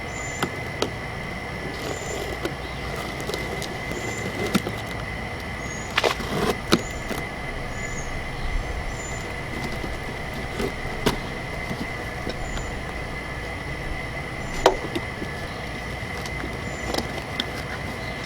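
Scattered knocks and clicks of the jack crossbar and its packaging being handled during unboxing, over a steady high-pitched whine.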